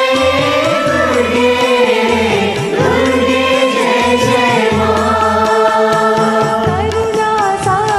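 Hindu devotional bhajan in praise of the goddess Durga, sung to instrumental accompaniment with a repeating low bass pattern.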